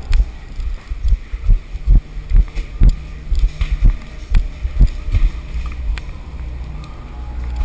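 Footsteps thudding about twice a second as a person moves quickly through a corrugated metal tunnel, with the head-mounted camera jolting at each step, over a low steady rumble.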